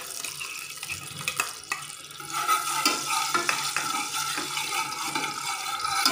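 A spoon stirring melting ghee in a steel saucepan on a gas stove, clicking and scraping against the pan's metal sides, over a steady hiss.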